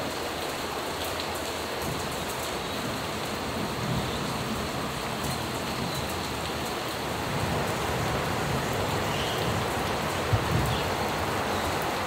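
Steady rain falling, with a short knock about ten seconds in.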